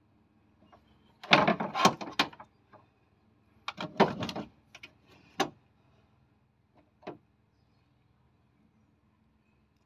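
Two car alternators handled and knocked together, metal on metal: two bursts of clunks and rattles each lasting about a second, then two single clicks, then quiet.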